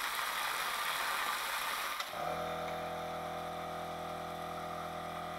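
Pressurised water jetting out of a drain fitting on an air compressor tank after a hydrostatic pressure test, a steady hiss of spray. About two seconds in there is a click, and a steady hum starts and carries on under the weaker hiss.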